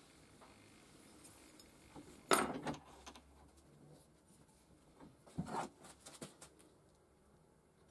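Sharp metal clanks and knocks as a steel knife blank is handled and set into a bench vise and the vise is clamped shut: a loud clank about two seconds in, another cluster of knocks about five and a half seconds in, then a few light clicks.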